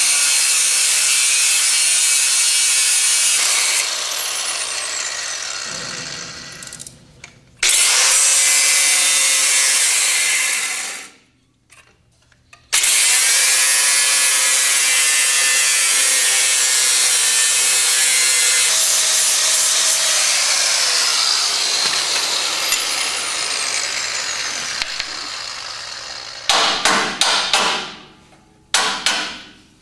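Handheld angle grinder grinding on a steel truck frame in several long runs, its whine falling away each time the trigger is released, with a short pause about eleven seconds in. Near the end, a quick series of sharp hammer blows on the metal.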